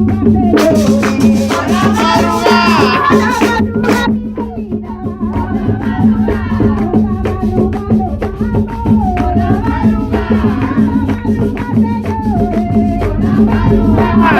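Instrumental opening of a song played by a tuna-style string ensemble: plucked and strummed strings carry a melody over a steady accompaniment, with a shaken rattling percussion instrument keeping the rhythm.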